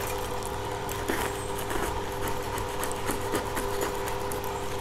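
Newspaper-and-tape wrapping on a package crinkling and rustling as it is gripped and worked open by hand, with irregular small crackles. A steady hum runs underneath.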